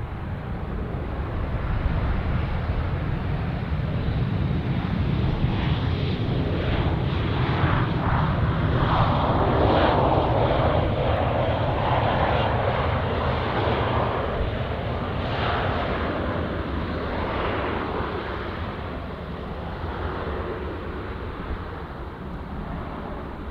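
A jet airliner's engines passing on its landing approach: a steady rumble and rush that swells to its loudest about ten seconds in, then slowly fades.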